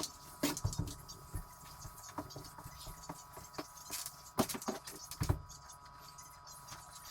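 Scattered light knocks, taps and scrapes of sweeping a kitchen floor, with faint music underneath.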